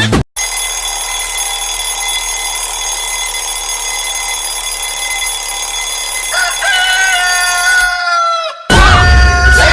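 Alarm ringtones playing one after another: a steady electronic tone with a rooster crowing over it in the last couple of seconds, then after a brief break a louder rooster-crow alarm tone starts.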